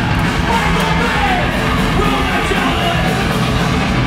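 A live rock band playing loud, fast heavy music, with shouted vocals over the full band.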